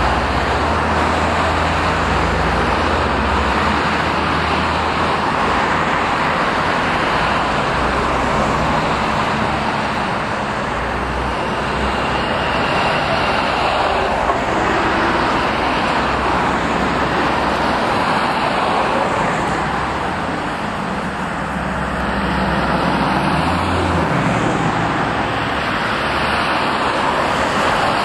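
Steady road traffic noise, a continuous wash of passing vehicles, with a low engine hum swelling at the start and again about three-quarters of the way through.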